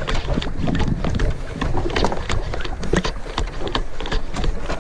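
Irregular sharp knocks and taps on a fishing boat, over a steady low rumble of wind and water.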